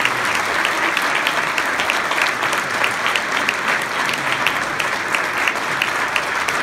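A large audience applauding steadily, with many individual claps standing out.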